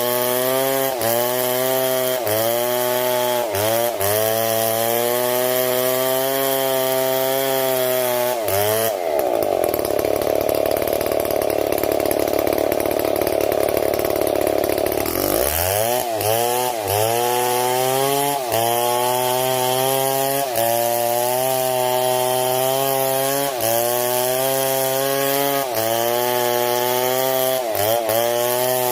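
Big two-stroke STIHL MS 070 chainsaw cutting wood, its engine note dipping under load and recovering every second or two. About a third of the way in it falls back to idle for roughly six seconds, then revs up again and cuts on.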